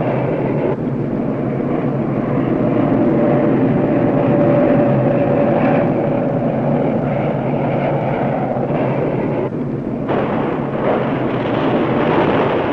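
Jet engines of a B-52 bomber running with a loud, steady noise, briefly dipping about nine and a half seconds in.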